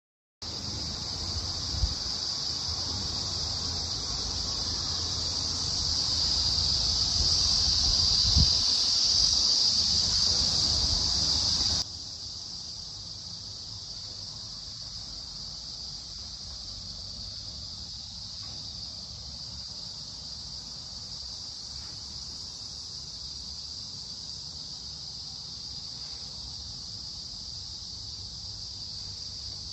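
Steady high-pitched chorus of insects such as crickets trilling, with two brief low thumps early on. About twelve seconds in it drops suddenly to a quieter level and carries on steadily.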